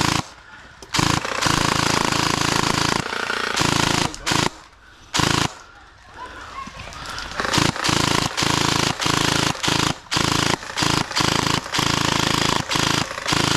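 Electric gel blasters firing on full auto, a rapid mechanical clatter. Long bursts come in the first half, then a string of short bursts.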